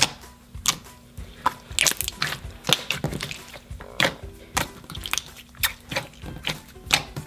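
Hands kneading and squishing a glossy pre-made slime, giving irregular sticky clicks and pops several times a second. Faint background music runs underneath.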